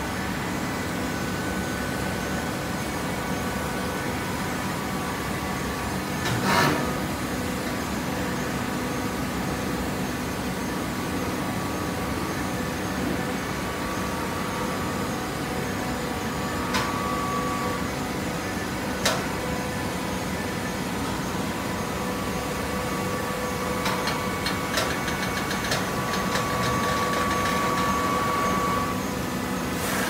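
Horizontal hydraulic baler running with a steady mechanical hum. A loud clank comes about six seconds in, then a few sharp knocks later. Near the end a higher steady whine grows louder for a few seconds.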